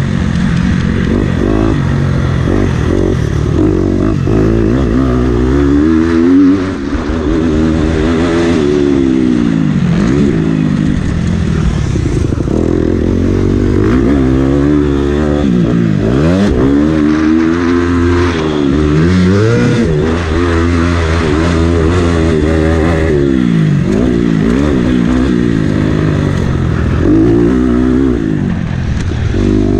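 Motocross bike engine under hard riding, revving up and dropping off again and again as its pitch climbs and falls with throttle and gear changes. A brief loud peak and a sudden dip come about six and a half seconds in.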